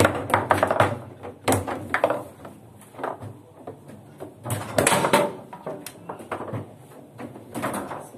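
Foosball table in play: the plastic ball is struck by the rod-mounted men, and the steel rods clack and bang against the table, giving sharp knocks in quick clusters.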